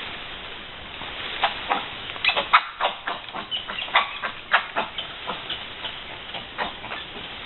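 Brown spider monkeys (Ateles hybridus) giving a rapid, irregular run of short, sharp calls, several a second, starting about a second and a half in, loudest in the middle and thinning out near the end: a reaction to a human observer.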